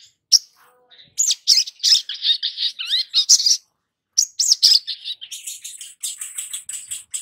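Olive-backed sunbird (sogon) singing a fast, high chattering song of sharp chirps and trills, with a short break about halfway through.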